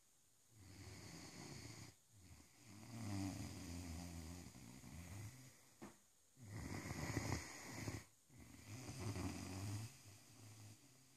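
Great Dane snoring in its sleep: a low, rattling snore on each slow breath, four or five breaths with short pauses between them.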